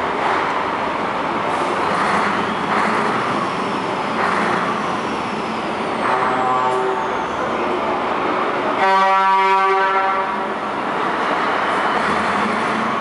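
Truck engines running in a tunnel, with a faint horn about six seconds in and then a loud truck horn blast of about a second and a half, around nine seconds in.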